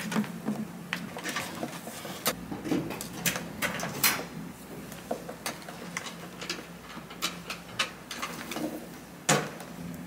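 Cables being handled and pushed through a plastic cable-entry frame on a metal control panel: irregular clicks and taps of plugs and cable jackets knocking against the frame and panel, with rustling, and the loudest knock near the end. A faint steady low hum runs underneath.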